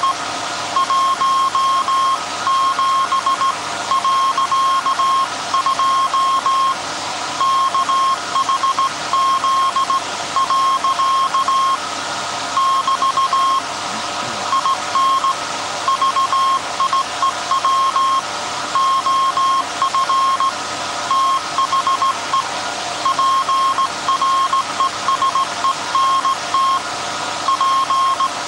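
Morse code keyed by hand on a telegraph key, heard as a beep of about 1 kHz in long and short dashes and dots. Under it is the steady hum and whine of the 1924 Alexanderson alternator running to transmit on call sign SAQ.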